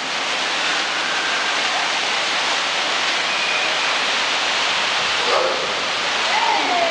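Steady rush of water from a bowl water slide, running down the bowl and pouring through the drain hole at its centre. Faint voices call out near the end.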